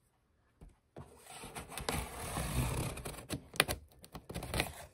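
Cardboard shipping box being opened by hand: a rasping scrape of about two seconds, then several sharp clicks and knocks.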